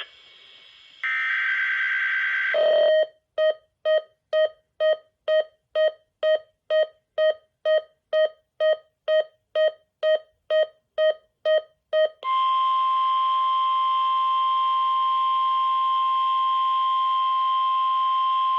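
Emergency Alert System alert tones: a brief buzzing burst of data tones, then about twenty short beeps at about two a second, then a steady NOAA Weather Radio 1050 Hz warning alarm tone held for about seven seconds.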